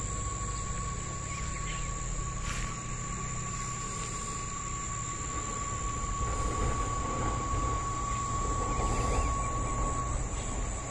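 Steady outdoor insect drone: a thin high-pitched whine and a lower steady tone that stops near the end, over a low rumble.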